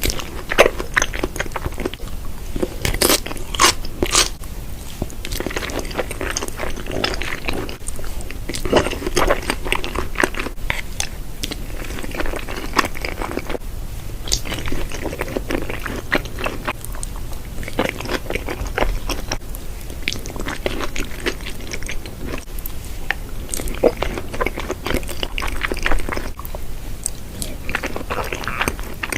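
Close-miked eating: a person biting and chewing crunchy food, with many sharp crunches and wet chewing sounds. A run of louder crunches comes about three to four seconds in.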